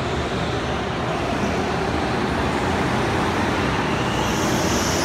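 Go-karts running around an indoor track, a steady din of kart motors.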